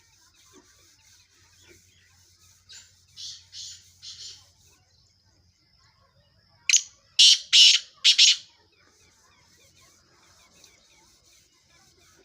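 Black francolin calling: a harsh, grating phrase of about four notes, fainter, about three seconds in, then a loud phrase of about five notes about seven seconds in.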